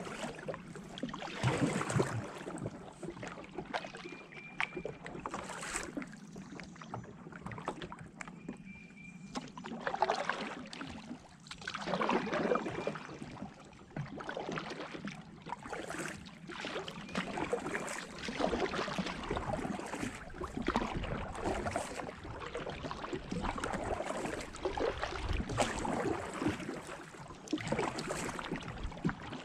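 Kayak paddle strokes dipping and splashing in the water, a surge of water noise about every two seconds.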